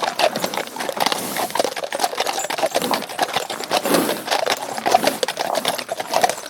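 Hooves clattering on hard ground: a dense, irregular run of quick knocks with no pause.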